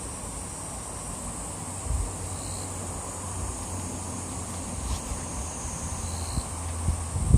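Summer insects singing in a steady, high-pitched chorus over the babble of a shallow stream, with low gusts of wind on the microphone growing toward the end.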